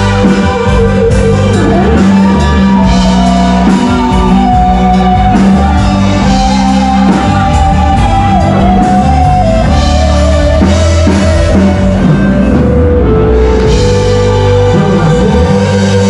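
Live rock band playing loudly: drum kit and bass under a held melody line that steps up and down in pitch.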